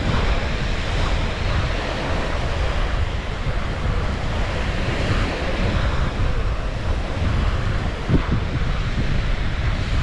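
Small waves breaking and washing up a sandy beach, mixed with steady wind buffeting the microphone, and a brief thump about eight seconds in.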